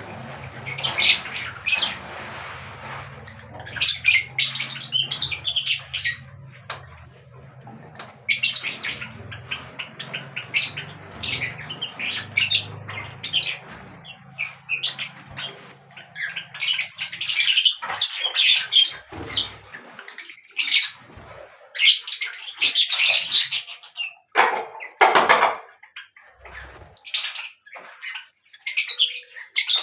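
Birds chirping and squawking in quick, overlapping bursts of high-pitched calls, with a lower, harsher call about 25 seconds in.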